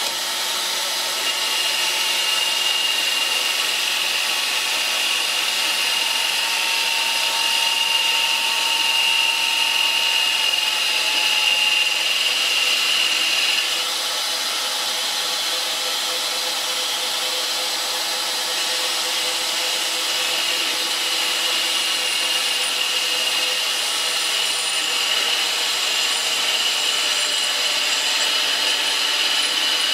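Grizzly G0752 metal lathe running under its CNC conversion, with a carbide insert taking automatic profile turning passes on a metal bar. A steady high whine breaks off about 14 seconds in and returns a few seconds later.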